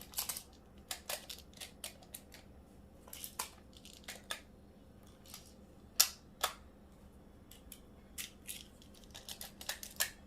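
Plastic magnetic building tiles clicking and clacking as they are handled and snapped together, in irregular short clicks with a sharper one about six seconds in.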